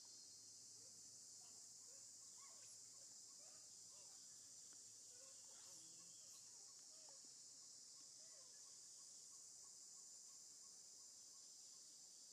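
Faint, steady high-pitched drone of a forest insect chorus, with faint scattered short chirps beneath it.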